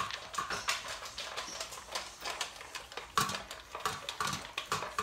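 Great Danes munching dry kibble from their bowls: a busy run of irregular crunches, with kibble and teeth clinking against the bowl.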